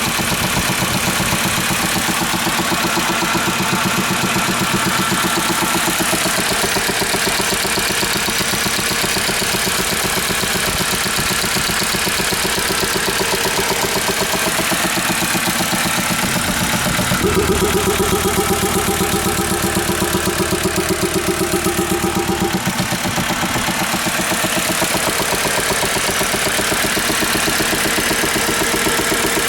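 Jeep Grand Cherokee 3.1 turbodiesel five-cylinder engine idling with a steady rhythmic knock, which the owner traces to the air intake. About two-thirds of the way through, a deeper drone joins the idle for about five seconds, then drops away.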